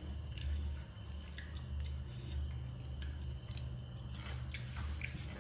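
A person chewing a piece of crispy fried rohu fish, steady rhythmic chewing with faint wet, clicky mouth sounds.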